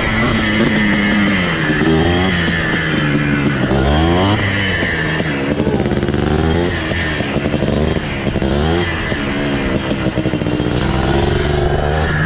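Yamaha Blaster's single-cylinder two-stroke quad engine revving up and down repeatedly, its pitch rising and falling several times as the throttle is worked.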